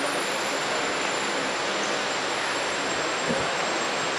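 Steady, even hiss of background room noise with no speech, and one faint low thump about three seconds in.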